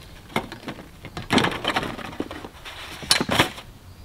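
Knocks and short rattling clatters of gear being handled on a small inflatable dinghy with its outboard motor, loudest about a second and a half in and again about three seconds in.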